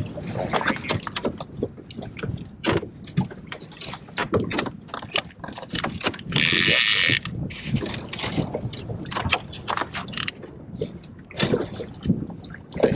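Trolling reel being cranked to bring in a hooked landlocked salmon, irregular clicking mixed with water slapping and splashing against a small boat's hull. A one-second burst of hiss comes about six seconds in.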